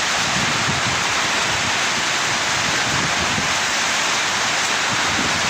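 Heavy rain pouring down in a storm: a steady, even hiss that holds at one level throughout.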